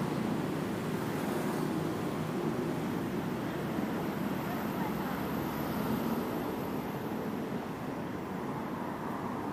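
Steady hum of city traffic heard from the pavement, an even wash of noise with no single vehicle standing out.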